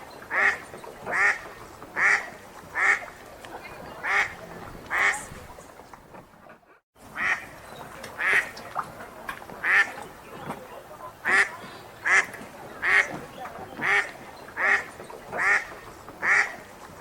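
Wild duck quacking in a steady series of single quacks, about one a second, over faint lakeside background noise. The quacking breaks off in a short drop-out to silence about halfway, then resumes at the same pace.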